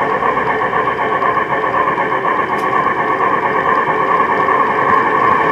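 Garden-scale geared Shay-type model locomotive running close by, a loud steady whir of its drive gearing and wheels rolling on the rails.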